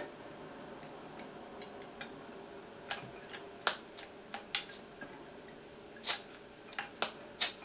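Irregular sharp clicks, about a dozen over several seconds, from a hand working the pressure-release valve on the lid of a small watch depth-test pressure tank; the valve is failing to let the pressure out.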